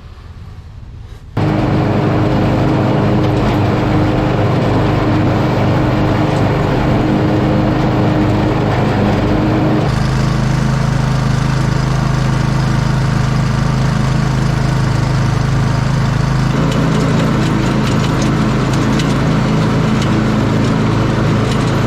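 John Deere Z425 zero-turn mower engine running steadily at speed. It comes in loud about a second in, and its tone shifts abruptly twice along the way.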